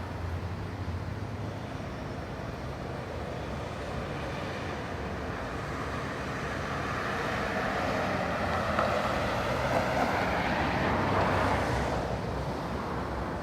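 Residential outdoor ambience: a low steady hum, then a passing vehicle's noise swells over several seconds and fades away near the end.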